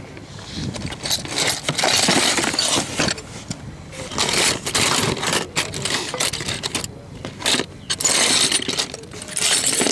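Small steel hand tools (hex keys, drill bits, calipers, bushings) clinking and jangling against each other as a hand rummages through them in a cardboard tray, in several bouts of rattling.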